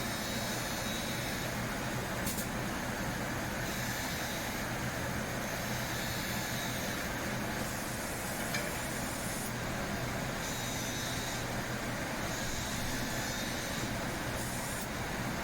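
SAOMAD Woodpecker Just 3500 CNC machining centre running: a steady hum with a high whine that switches on and off every second or two as the machine moves.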